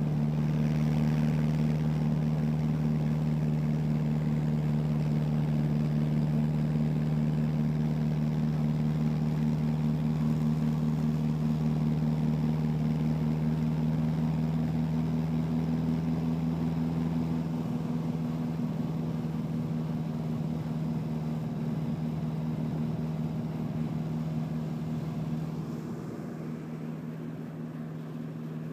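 Tractor engine running steadily while driving along the road, heard from on board, with an even low drone. It gets a little quieter about two-thirds of the way through and again near the end.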